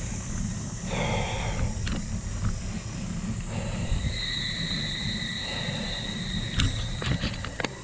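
Wind buffeting the microphone of a camera on a moving bicycle, with a thin high whine in the middle and a quick run of clicks near the end.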